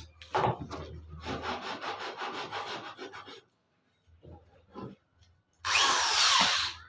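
Wood being sawn or rasped by hand with quick, rhythmic scraping strokes, about five a second, for about three seconds. Near the end comes a short, louder burst of hissing noise.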